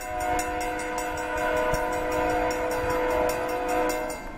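Air horn of the lead freight locomotive, CP AC4400CW 9676, sounding one long blast of several notes at once that lasts about four seconds.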